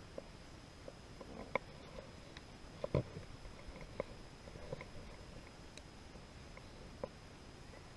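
Faint, irregular small clicks and soft knocks over a low hiss, with one louder thump about three seconds in.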